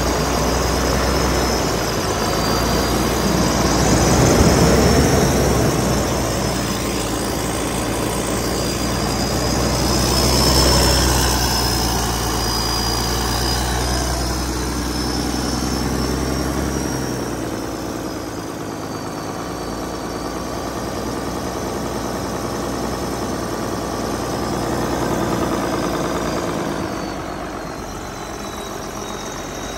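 Cummins 6CTA8.3 turbocharged inline-six diesel running, its speed going up and down as the injection pump is worked by hand: two swells in the first half, then it settles lower and quieter. A thin high whine drifts up and down in pitch over the engine sound.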